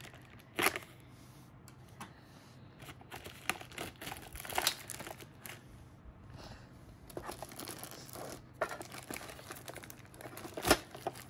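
Clear plastic wrapping crinkling and tearing as it is cut open with a small knife and pulled off by hand, with irregular crackles throughout and a sharp snap about half a second in and another near the end.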